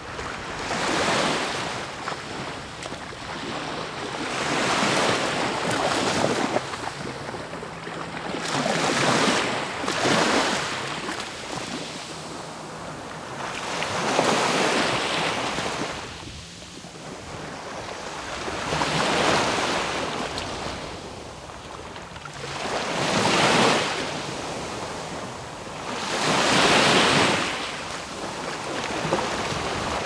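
Sea waves breaking on the shore, each breaker swelling up and washing back, about every four to five seconds, seven times.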